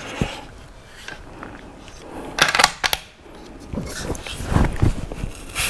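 Clicks and light knocks of a rifle in a magnesium chassis being handled: a couple of sharp clicks a little before halfway, then a cluster of duller knocks.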